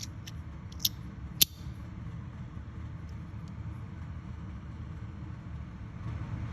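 Compoform Allure magnetic fidget slider clicking as its parts snap together under the magnets, three sharp clicks in the first second and a half, over a steady low rumble.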